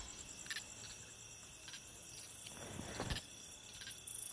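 Crickets and other night insects trilling steadily and quietly, with a few faint clicks.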